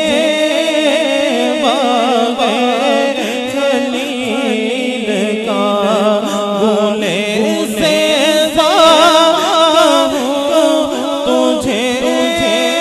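A man singing a naat without instruments, drawing out long, wavering, ornamented melodic lines.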